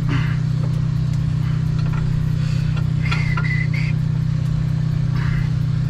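Heavy diesel truck engine idling steadily, a constant low drone with a fast even pulse.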